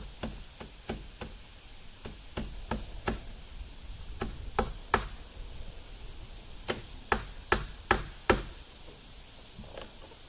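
A hammer driving nails into wood: runs of sharp knocks, about three a second, with a pause of a second or two in the middle and the loudest blows in the last run.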